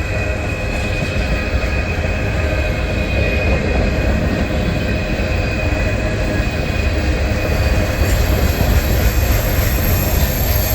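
Freight cars of a long train rolling past close by: a loud, steady rumble of steel wheels on rail. Over it runs a thin, steady squeal of wheels against the rail, and a second, higher squeal joins about seven seconds in.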